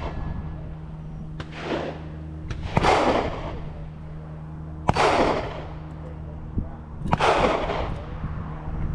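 Gunshots at a shooting range: four single shots a couple of seconds apart, the first faint, each followed by a long echo.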